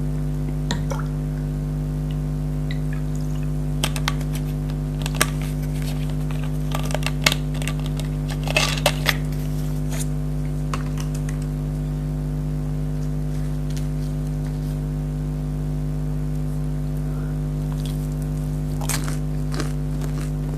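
Close-miked eating of fried food: scattered crisp crunches and wet chewing clicks, clustered between about four and nine seconds in and again near the end, over a steady low electrical hum.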